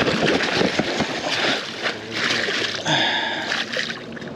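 Water splashing and sloshing irregularly as a freshly hooked pike thrashes at the surface.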